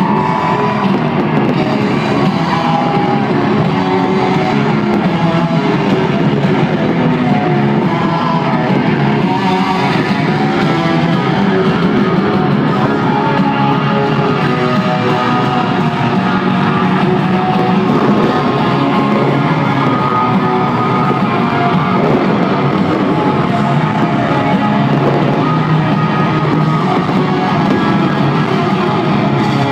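Loud live country-rock band music with electric guitars, played through a stadium sound system.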